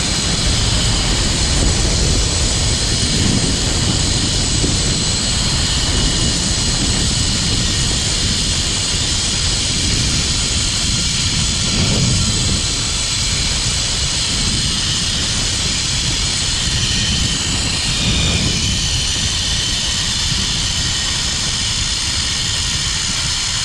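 Zipline trolley's pulley wheels running along the steel cable at speed: a steady, loud whirring rush with a low rumble that swells and eases a few times, mixed with wind on the microphone.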